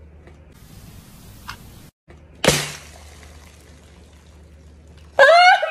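A balloon inside a glued string ball pops once with a sharp bang, about two and a half seconds in. Near the end a man lets out a loud, shocked cry.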